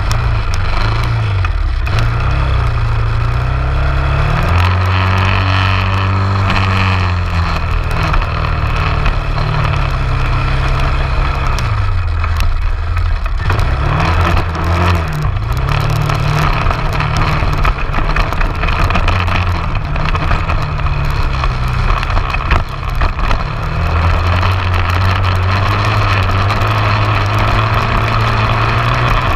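An off-road vehicle's engine running while riding over sand dunes, its pitch repeatedly rising and falling as the throttle is opened and closed. A steady rush of wind on the microphone runs underneath.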